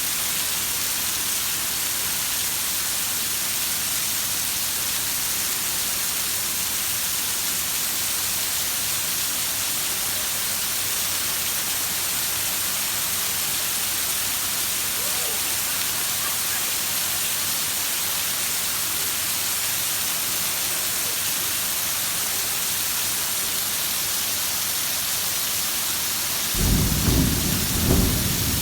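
Heavy rain falling as a dense, even hiss. About 26 seconds in, a loud rumble of thunder breaks in, swelling in a few surges.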